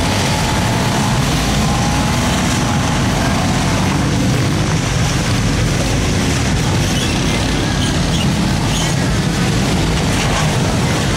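Truck and SUV engines running steadily as the vehicles crawl through shallow muddy water.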